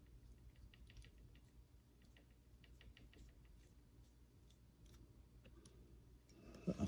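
Faint, irregular light clicks of a digital micrometer being handled, with a soft knock near the end.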